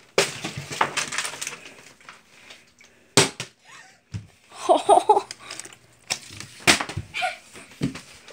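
Plastic water bottle flipped and hitting the wooden floor with a sharp knock about three seconds in, the bottle failing to land upright. A short burst of laughter follows, and a few more light knocks come near the end.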